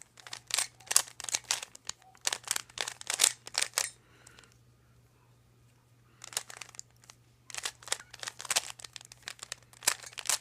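Plastic Cyclone Boys 3x3 speedcube being turned quickly by hand: runs of rapid clacking as the layers snap round, stopping for about two seconds near the middle before starting again.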